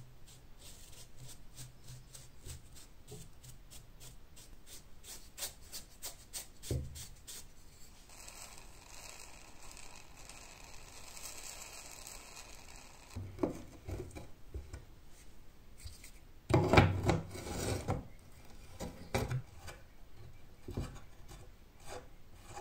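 A brush scrubs dirt and cobwebs off a rusty scythe blade in quick strokes. Then an aerosol sprays through a straw onto the rusted wing nut as a steady hiss of about five seconds. After that, fingers work the metal wing nut and clamp loose with clicks and knocks, the loudest about three quarters of the way in.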